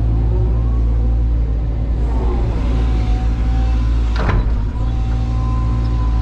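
CAT 320 GC excavator's four-cylinder diesel engine running under working load, with a whine from the hydraulics that slides up and down in pitch as the arm moves. A single sharp clank comes a little past the middle, as the bucket or linkage knocks.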